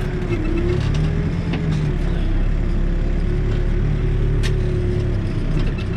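New Holland backhoe loader's diesel engine running steadily, with the pitch wavering slightly as the hydraulics are worked. A single sharp click about three-quarters of the way through.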